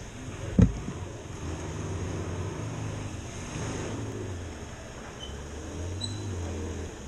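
A single sharp thump about half a second in, then a vehicle engine running with a low, wavering note.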